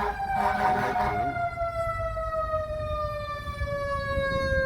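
Fire engine siren winding down, its single tone falling slowly and steadily in pitch, over the low rumble of the truck.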